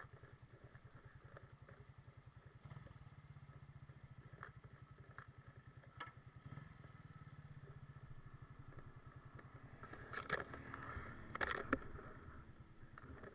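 Motorcycle engine idling with an even low putter. Several sharp clacks and knocks come near the end.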